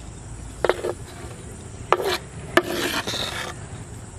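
Kitchen knife on a wooden chopping board: three sharp knocks of the blade on the wood, each followed by scraping as chopped green chillies are pushed off the board into a clay dish. The last scrape is the longest.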